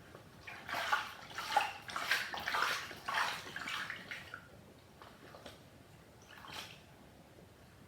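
Water sloshing and splashing as a plush toy is moved around in a basin of wash water: a busy stretch of about four seconds, then two short splashes.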